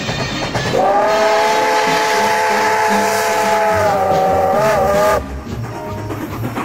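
Steam locomotive whistle blowing one long blast of several tones sounding together, starting about a second in and cutting off sharply after about four and a half seconds.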